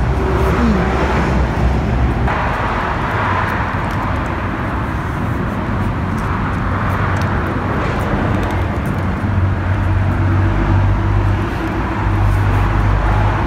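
Steady rumble of motor-vehicle noise with a low hum, which grows a little stronger about two-thirds of the way through.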